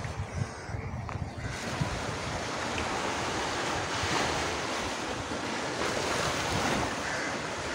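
Waves breaking and washing on the shore in a steady rush, with wind buffeting the microphone in low rumbles. The upper hiss fills in about a second and a half in.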